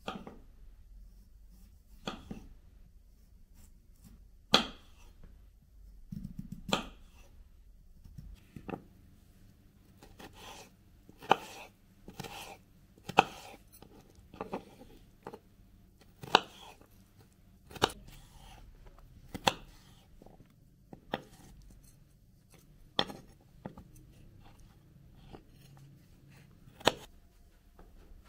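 Knife chopping on a cutting board: slow, uneven knocks, roughly one every second or two.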